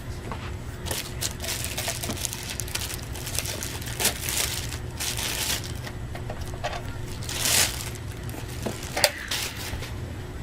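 Retail camera packaging being handled and turned over: irregular crinkling, rustling and small knocks, over a steady low hum.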